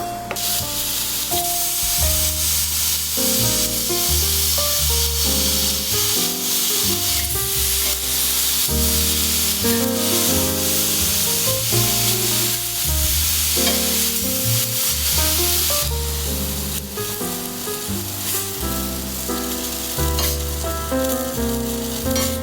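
Food sizzling in a hot pan, a dense steady sizzle that stops about three-quarters of the way through, over background music with piano-like notes and a bass line.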